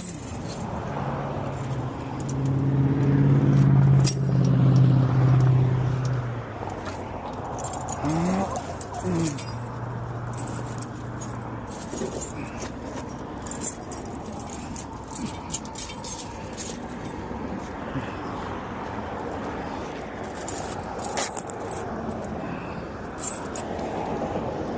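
Steel tire chains clinking and rattling as they are fitted to a semi truck's tires. A vehicle engine hums loudly for a few seconds early on, then more quietly again for a couple of seconds.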